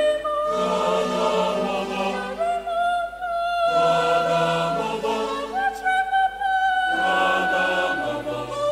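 Mixed choir singing slow, long-held chords in parts, the chord changing every second or two with brief breaks between phrases.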